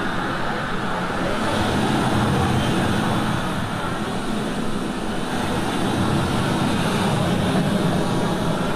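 Steady rushing of ocean surf washing on a beach.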